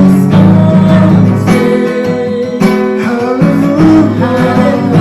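Worship song with strummed acoustic guitar accompaniment and singing.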